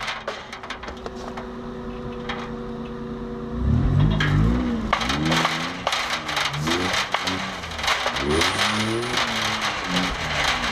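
1989 Toyota 4Runner's engine, heard from its own hood, holds a steady low note for the first three and a half seconds. It then revs up and down repeatedly as the truck drives over rough ground, with loose metal parts clattering and rattling throughout.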